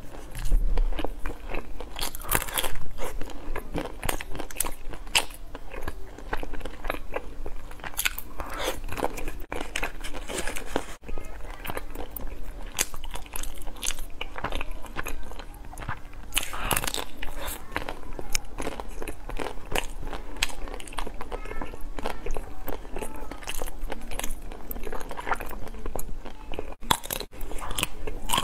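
Biting and chewing on hard, frozen white chocolate ice cream treats: repeated sharp crunches and crackles as the coating cracks, then wet chewing between bites.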